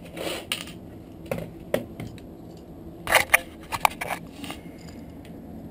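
Scattered clicks and knocks as a small metal gear part is worked loose from a cordless drill's keyless chuck and handled on a concrete floor, with a quick cluster of sharper clicks about three seconds in.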